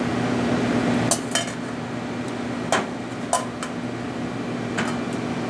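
Metal kitchen tongs and a stainless steel mixing bowl clinking as salad greens are plated: about five sharp, separate clinks over a steady low hum.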